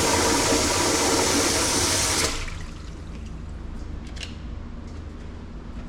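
Water rushing through the dairy's milk line and canister, cutting off abruptly about two seconds in, then a low steady hum under a few faint clicks.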